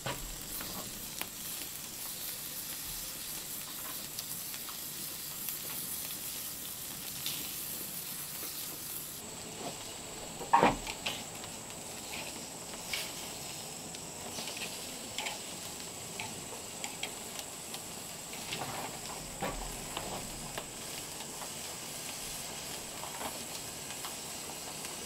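Hot dogs sizzling on a metal grill grate over a wood fire, a steady hiss. Metal tongs turning them make scattered clicks and clinks, the loudest about ten and a half seconds in.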